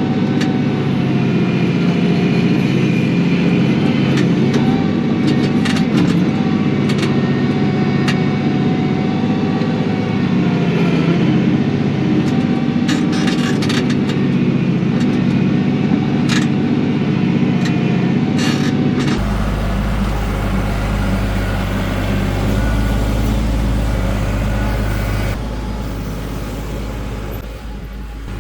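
Kioti NS6010 compact tractor's diesel engine running steadily, with scattered sharp clicks and knocks over it. About two-thirds of the way through, the sound changes suddenly to a lower, steadier engine hum without the clicks, and it fades a little near the end.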